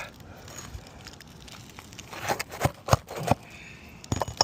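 Roofing hand tools working at asphalt shingles and their nails: a light scraping crackle, then from about two seconds in, a run of sharp knocks.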